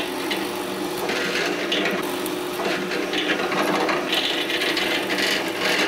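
Drill press running steadily, its twist bit boring holes into a 2x4 block, the cutting noise swelling each time the bit bites into the wood.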